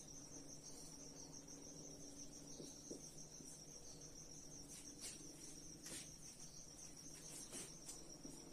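Near silence: a faint, steady high-pitched trill with a low hum underneath, and a few faint marker strokes on a whiteboard around the middle and near the end.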